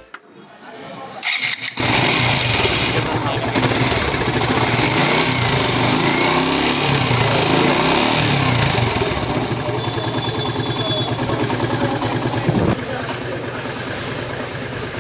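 Suzuki Gixxer motorcycle's single-cylinder engine cranking and catching about two seconds in, then running with its revs rising and falling before it settles to a steadier run near the end.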